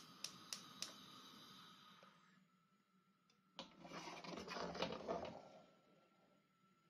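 A few sharp clicks about a third of a second apart, then a couple of seconds of metal scraping and rattling as a frying pan is set down and slid onto the cast-iron grate of a gas stove.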